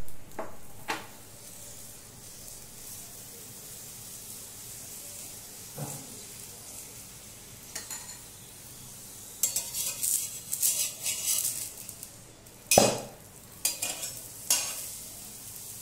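Paratha sizzling on a hot iron tawa, with a metal spatula scraping and knocking against the pan several times as it is worked and turned; the loudest knock comes near the end.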